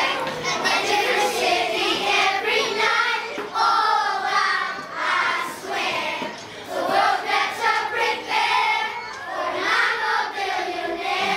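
A group of children singing together, their voices rising and falling continuously.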